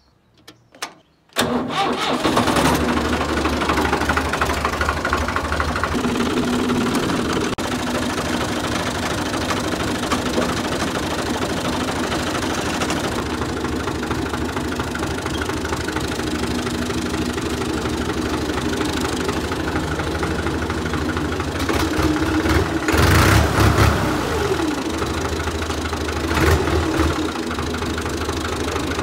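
New Holland Ghazi tractor's diesel engine starting up about a second and a half in, then running steadily at idle, revved up briefly twice near the end.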